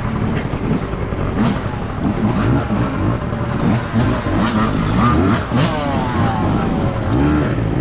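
Dirt bike engine revving, its pitch rising and falling again and again with the throttle.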